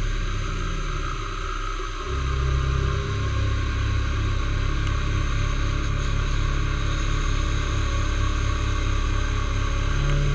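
Milling machine running, a steady low hum with a fast, even low throb. The hum glides down and dips about two seconds in, then settles back to steady running.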